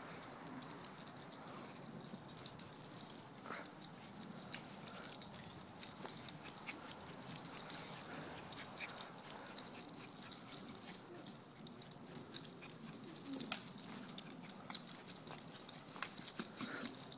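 A small Yorkshire terrier making play noises as it chases and bites at a broom swept over grass, with scattered brushing and rustling.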